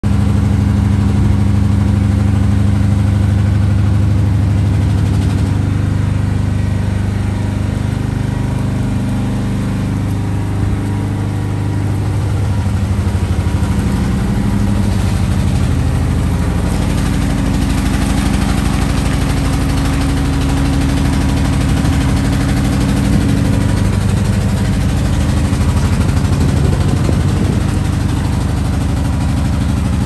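Heavy truck's diesel engine running steadily at low revs as it slowly tows a loaded low-loader trailer.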